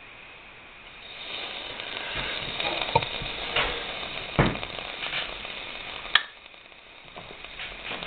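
Homemade can alcohol stove burning under a stainless steel cup of water, with sizzling and crackling that builds about a second in and a few sharp clicks. It cuts off abruptly just after six seconds, then comes back fainter.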